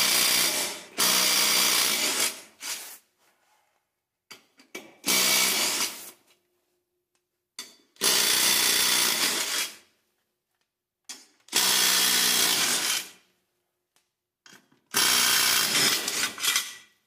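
Cordless DeWalt impact wrench with a 5/8-inch socket running off the lug nuts of a garden tractor's rear wheel. It runs in six short goes of one to two seconds each, with pauses between them, one nut after another; the first run is already going at the start.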